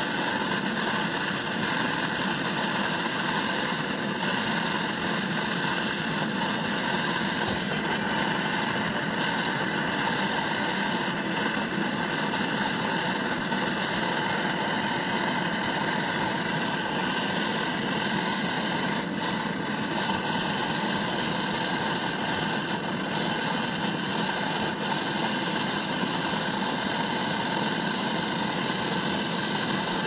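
A hand-held gas torch fed from a small gas canister, burning with a steady, even hiss as its flame heats a copper tube being brazed onto a refrigerator compressor's charging stub.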